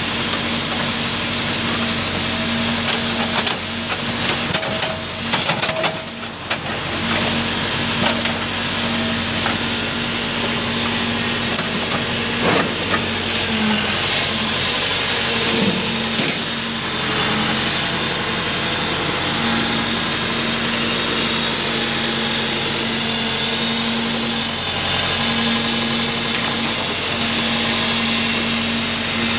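Backhoe loader's diesel engine running steadily, with a few scattered knocks and clatters about five seconds in and again around twelve to sixteen seconds in.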